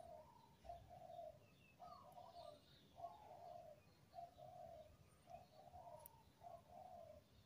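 Faint dove cooing: a steady run of short, low coos, about two a second.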